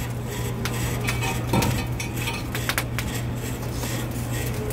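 Wire mesh grill basket clinking and rattling against the metal grill grate and rotisserie spit as it is lowered into place, a few sharp metallic clanks, over a steady low hum.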